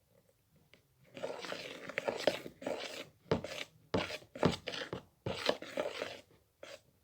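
Fluffy slime being stirred and worked with a spoon: a run of irregular crackling, sticky bursts starting about a second in, with a few sharper clicks, as the still slightly sticky mixture is mixed.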